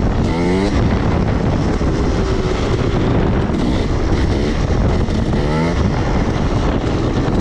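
A 300cc two-stroke dirt bike engine revving under way. Its pitch climbs in quick sweeps near the start and twice more past the middle, over a dense rush of wind and riding noise.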